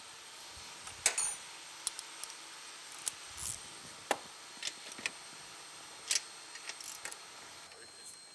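Irregular metallic clicks and clinks of a hand wrench working bolts on a snowmobile's suspension mounts, about a dozen short taps spread unevenly.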